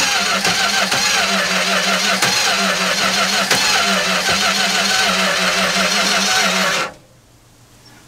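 Mopar 318 polyhead V8 cranking over on the starter with an even, pulsing rhythm but not catching, then cutting off suddenly about seven seconds in. It fails to fire because it is starved of fuel: "she's wanting gas".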